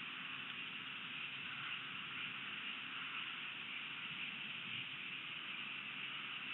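Steady outdoor background noise: an even hiss with a faint low rumble, with no calls or distinct sounds.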